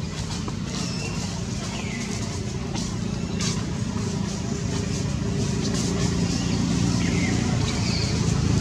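A motor vehicle engine running steadily, slowly getting louder, with a few faint high chirps over it.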